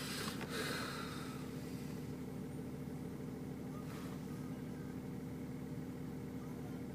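Car engine running, heard from inside the cabin as a steady low hum. There is a brief rustle about half a second in.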